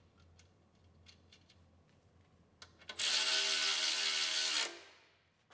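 A few faint ratchet clicks as the crank is turned, then a power ratchet runs steadily for under two seconds, spinning a torque converter nut down onto its flex-plate stud, and winds down.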